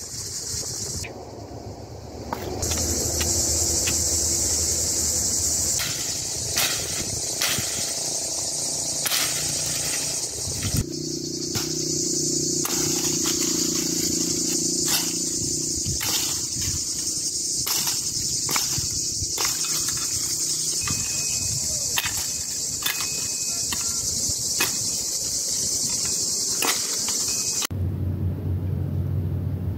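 A steady, high-pitched chorus of insects, with sharp knocks of an axe chopping thin branches at irregular intervals. The insect chorus cuts off suddenly near the end.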